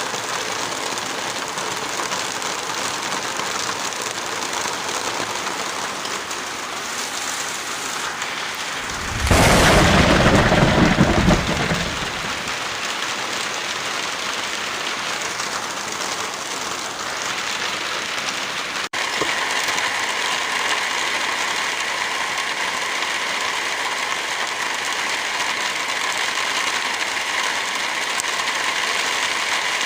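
Heavy rain falling in a steady hiss, with a loud clap of thunder about nine seconds in that rumbles for around three seconds. Past the middle the sound cuts out for a split second and the rain comes back with a slightly different, brighter tone.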